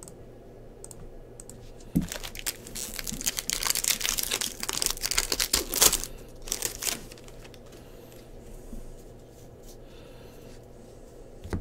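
Foil wrapper of a Bowman baseball card pack crinkling and tearing as it is ripped open: a dense crackle starting about two seconds in and lasting about five seconds, followed by softer sounds of the cards being handled.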